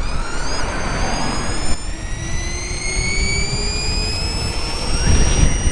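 Electric motor, switched to delta wiring, whining under throttle: a several-toned whine that rises steadily in pitch as the vehicle gains speed. A low rumble runs underneath and grows louder about five seconds in.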